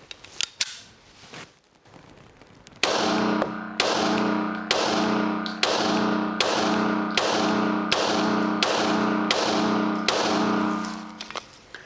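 A Sig Sauer M17 9mm pistol firing 124-grain Federal Syntech ammunition in slow, steady shots. There are about eleven shots, a little under a second apart, starting about three seconds in. Each shot rings on in the indoor range.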